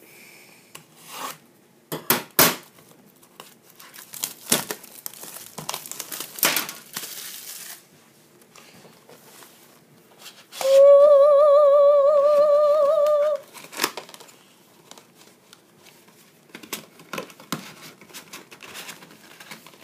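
Plastic shrink wrap and cardboard of a hockey-card box being cut, torn and crinkled open, with scattered clicks and rustles. About halfway through, a loud wavering tone sounds for about three seconds.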